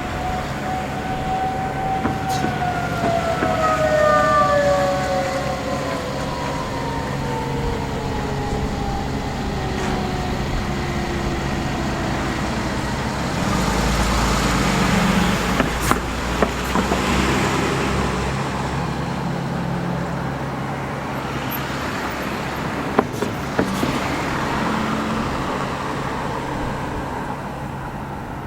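Outdoor tornado warning siren winding down: its tone holds briefly, then slides steadily lower over about ten seconds and fades out, over a steady traffic rumble. About halfway through, a vehicle passes louder, with a few sharp clicks.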